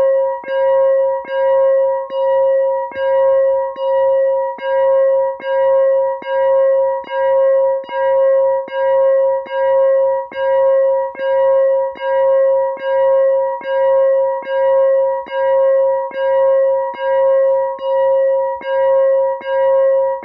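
Synthesized railroad crossing bell imitating a WCH (Western-Cullen-Hayes) Type 4 crossing bell, played on a phone synthesizer app: one steady pitch struck over and over, a little more than once a second, each ding ringing on into the next.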